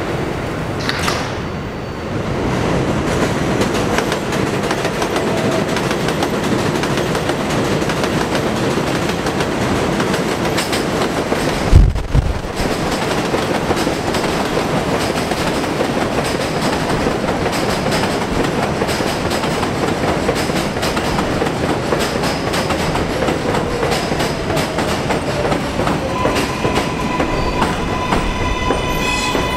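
7 subway train running on the steel elevated structure, a continuous loud rumble and clatter of wheels over the rails. About twelve seconds in comes one heavy low thump. Near the end a steady whine of several tones sets in.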